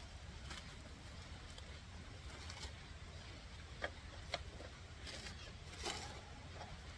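Faint handling noises: two small sharp clicks about half a second apart near the middle, then a short rustle, over a low steady hum.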